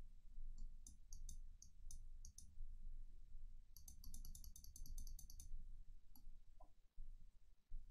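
Clicking at a computer mouse and keyboard: a few scattered clicks, then a quick run of a dozen or so clicks about four seconds in, over a low room hum.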